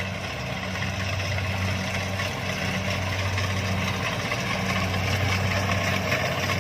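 Kubota DC-70 rice combine harvester's diesel engine running steadily, a constant low hum under a clatter of machinery.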